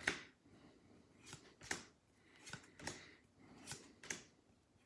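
Pokémon trading cards being flipped through one at a time: faint snaps and slides of card stock as each card is moved to the front of the stack, often two close together, about every second.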